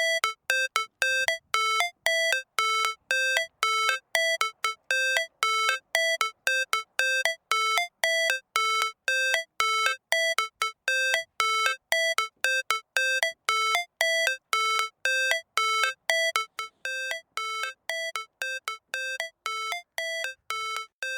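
Electronic background music: a repeating melody of short, bell-like synth notes, about three a second.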